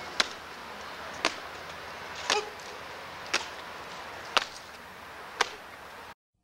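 Boots of a file of East German soldiers stamping in unison on stone paving as they goose-step, one sharp stamp about every second. The sound cuts off suddenly near the end.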